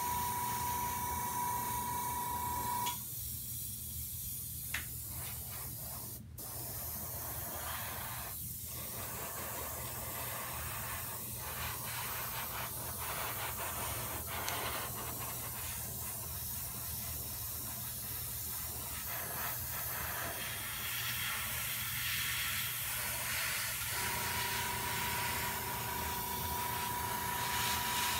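Iwata airbrush spraying paint: a steady hiss of air over a low hum, with a thin high whistle that stops about three seconds in and returns near the end.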